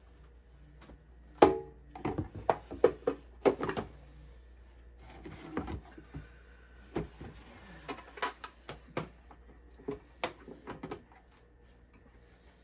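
Handling noises from unboxing a humidifier: a run of sharp knocks and clicks of plastic parts and packaging, the loudest about a second and a half in, with a short spell of rustling in the middle.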